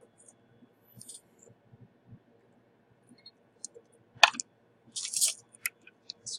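Small hand tools clicking and tapping at a microsoldering bench: sparse faint ticks, one sharp click about four seconds in, and a brief scratchy hiss just after it.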